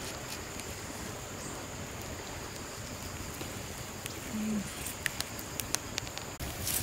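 Steady rush of river water with a few sharp clicks about five to six seconds in, and a short hummed voice sound about four and a half seconds in.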